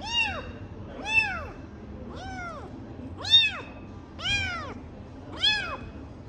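Newborn kittens mewing. Six high, thin cries come about a second apart, each rising and then falling in pitch.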